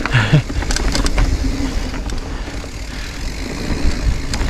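Mountain bike, a rented Giant Reign, descending a rocky downhill trail: a steady low wind and tyre rumble on the microphone with sharp clacks of the bike rattling over rocks, a cluster about a second in and another near the end.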